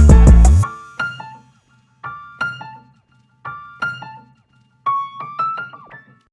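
Background music: a loud track with a heavy beat stops under a second in, leaving a few sparse groups of ringing piano notes that fade out one after another.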